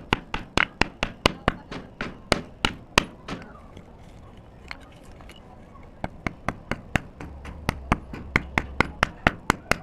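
Dry multani mitti (fuller's earth) clay crunching: a run of sharp, crisp cracks about three a second, a pause of a couple of seconds, then another run.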